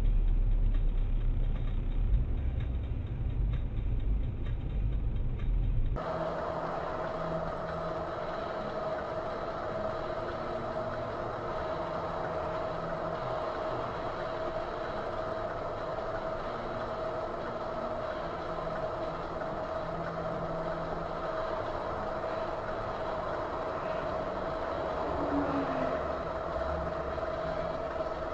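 Vehicle driving noise picked up by a dash cam: a heavy low rumble for about six seconds. After an abrupt cut it turns to a quieter, steady hum with a constant high tone.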